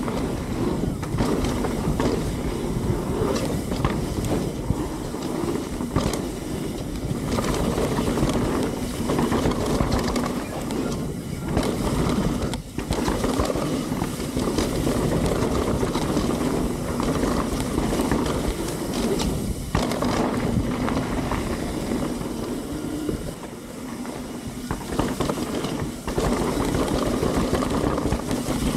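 Mountain bike riding fast down a dirt trail: tyres rolling over dirt and the bike rattling and knocking over bumps, with wind buffeting the camera microphone.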